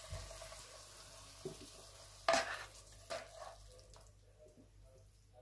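A cooking utensil scraping and knocking against a frying pan as fried fish in sauce is scooped out, with one louder clatter a little past two seconds in. A faint sizzle from the pan dies away near the end.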